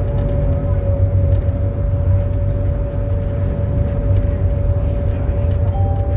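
Mitsubishi Crystal Mover C810 automated people mover running along the guideway, heard from inside the car: a steady low rumble from its rubber tyres with a constant whine at one pitch, and occasional light clicks and rattles.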